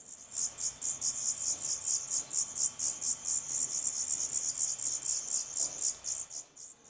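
Black redstart nestlings begging: very high-pitched calls repeated rapidly, about six a second, stopping shortly before the end. They are begging for food while a parent is at the nest.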